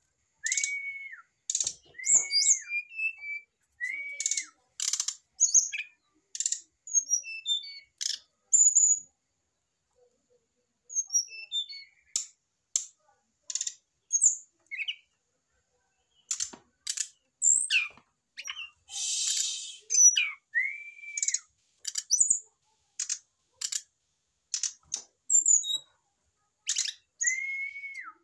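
Brown-chested jungle flycatchers calling, a male kept beside a female: a busy run of sharp clicking ticks and high thin chips, with short arched whistled notes near the start and near the end. The calls pause for a few seconds about a third of the way through, and a short hiss comes about two-thirds in.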